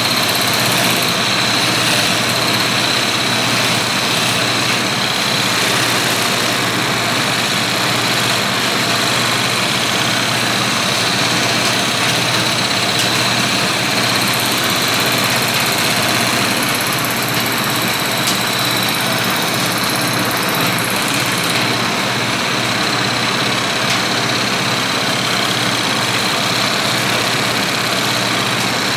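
Wood lathe running steadily while a turning tool cuts a spinning burl bowl blank: a continuous motor hum with an even hissing scrape of the cut over it.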